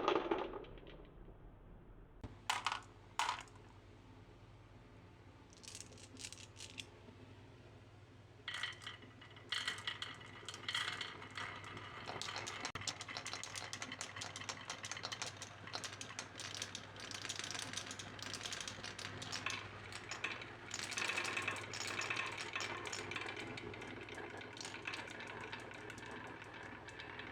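Marbles rolling and clattering down a marble run track: a few separate clacks in the first seconds, then from about eight seconds in a dense, continuous rattle of many marbles.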